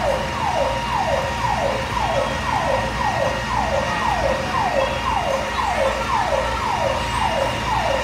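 Fire truck siren sounding a fast repeating wail, each cycle a quick falling sweep in pitch, about two a second.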